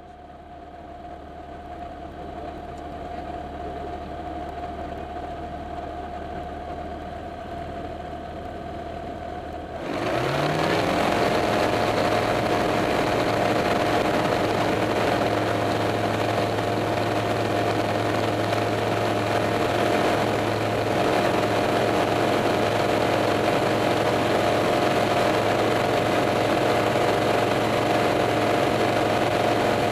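Small single-engine airplane's engine running at low power, fading in over the first few seconds. About ten seconds in the throttle is opened: the engine rises quickly to a steady, much louder full-power drone for the takeoff run and climb-out.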